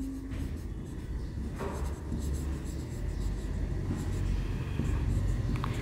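Marker pen scratching and squeaking across a whiteboard as words are written, over a low steady room hum.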